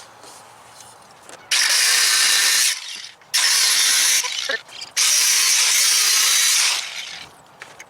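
Ratchet wrench clicking in three quick spells of about a second or more each, with short pauses between.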